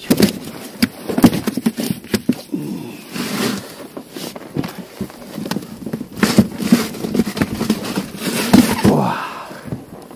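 Handling noise as a caught zander is pushed into a fabric fish bag on the floor of an inflatable boat: rustling with many irregular knocks and clicks.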